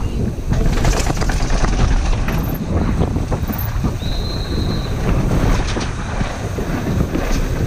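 Mountain bike descending fast on concrete and cobbled lanes: wind buffeting the microphone over the rumble of tyres and the rattle of the bike over bumps. A brief high tone sounds about four seconds in.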